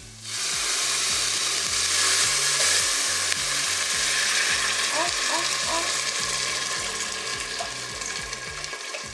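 An ingredient tipped into a big soup pot of hot olive oil and sautéing vegetables, sizzling loudly from about a quarter second in and slowly dying down.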